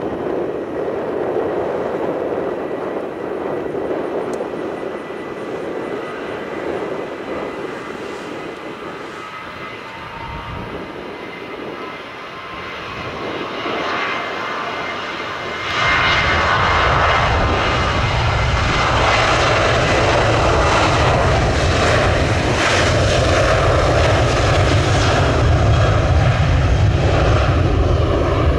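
Jet airliner engines. A steady rush fades, then builds again, and about halfway through jumps to a loud low rumble that holds to the end.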